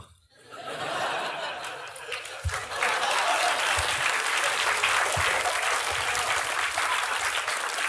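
Studio audience applauding after a punchline, swelling in about half a second in and growing louder about three seconds in.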